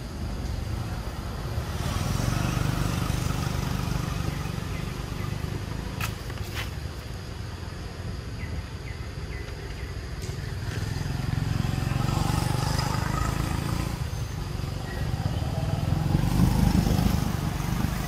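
Motor vehicles passing by, their engine noise swelling and fading about three times over a steady low rumble, with two sharp clicks about six seconds in.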